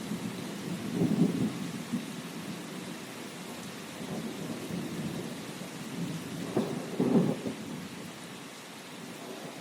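Steady rain falling, with low rolling thunder rumbling through it, swelling about a second in and again more strongly about seven seconds in before easing off.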